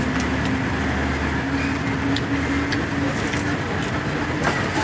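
Steady street traffic noise with a vehicle engine's low, even hum, and a few light clicks.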